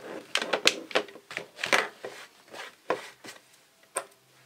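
Irregular knocks, taps and rustles of a plastic ammo can and a cordless drill with a step bit being handled and set down on a tabletop, among loose plastic drill shavings.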